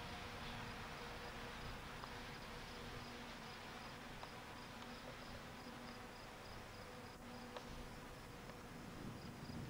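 Faint insect chirping: one high note repeating evenly about three times a second, over a low background hiss.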